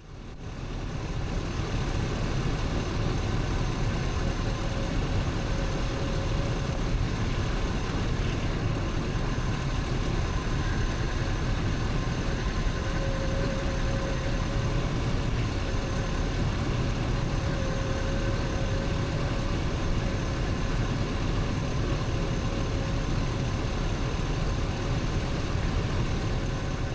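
Hummer H2's V8 engine idling steadily, with a faint wavering whine running over the idle from about five seconds in.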